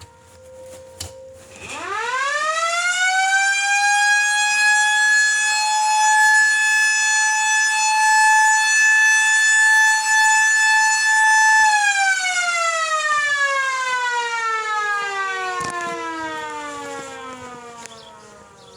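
Outdoor warning siren sounding for a tornado warning: it winds up quickly to a high steady tone, holds it for about ten seconds, then winds down slowly.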